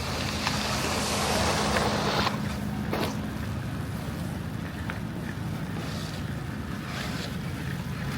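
Street traffic in heavy snow: a vehicle passes with a rushing tyre hiss through wet snow that builds and cuts off about two seconds in. Under it runs a steady low engine hum.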